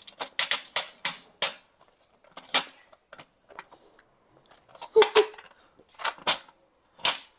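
Hard plastic clicks and clacks from the coin dial of a toy Dubble Bubble spiral gumball machine being turned by hand to dispense a gumball. The clicks come in several short bunches, with a quiet stretch in the middle.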